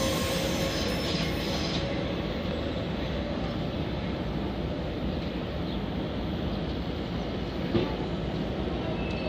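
Steady rumble of a train running on the rails, with faint squealing tones in the first two seconds and a single knock near the end.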